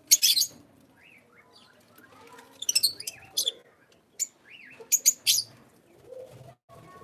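Small pet parrots chirping: loud, shrill, very high chirps come in short clusters four times, with softer, lower gliding calls between them.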